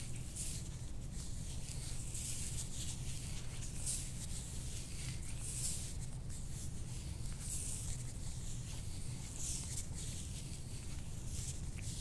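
Scalp massage: soft swishes of hands rubbing through hair, one every second or two, over a low steady hum.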